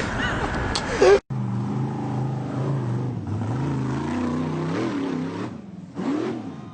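A truck-mounted train horn blares with a person's yell over it, cut off sharply about a second in; then a vehicle engine runs steadily, its pitch stepping up and down.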